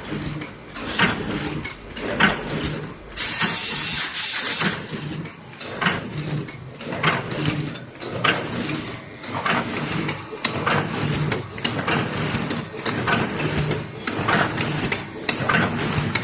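Automatic powder filling and pillow-pack packaging machine running, with a regular mechanical clack about once a second over a pulsing motor hum. About three seconds in there is a loud hiss lasting about a second.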